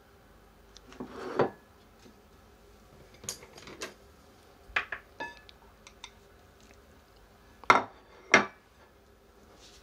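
Chopsticks and a ceramic plate clinking on a wooden table: about eight short, sharp knocks and clinks, scattered unevenly, with the two loudest close together near the end.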